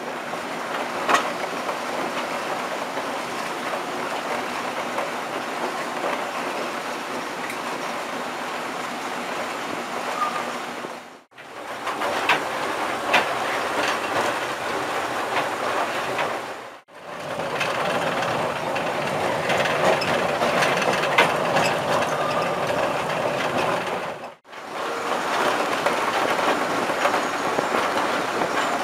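British Rail Class 05 diesel-mechanical shunter D2565 on the move, heard from its cab: a steady run of engine and wheel noise with occasional sharp clicks. The sound drops out briefly three times.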